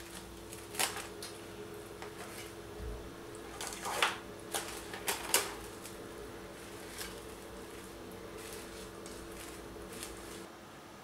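Plastic cling film crinkling and crackling as it is pulled and pressed over a round baking pan, in scattered sharp crackles with a cluster of louder ones about four to five seconds in, over a faint steady hum.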